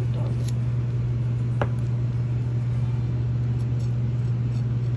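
A steady low hum runs throughout. Over it are faint taps and scrapes from a serrated knife slicing tomato on a plastic cutting board, with one sharp click about a second and a half in.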